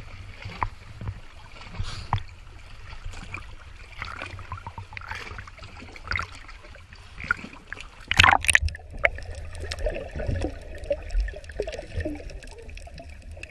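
Water sloshing and splashing against an action camera at the sea surface, with gurgles. There is a loud splash about eight seconds in, then the sound goes muffled as the camera dips underwater, with fine clicks and bubbling.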